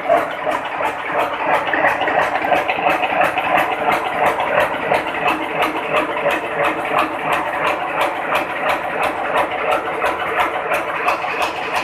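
Wire nail making machine running, a rapid, even mechanical clatter of several strokes a second over a continuous din.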